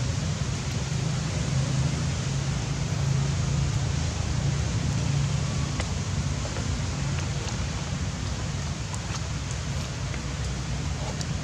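Steady outdoor background noise: an even hiss with a low, constant rumble and a few faint ticks. No monkey calls stand out.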